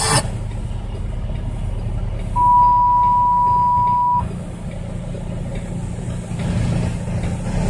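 Heavy truck's engine running low in the cab as it rolls slowly. A single steady high beep lasting about two seconds sounds near the middle and stands out above the engine.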